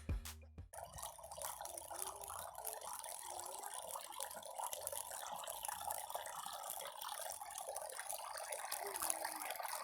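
Water trickling and splashing steadily down a small cement-and-sand tabletop waterfall fountain, kept flowing by a small pump.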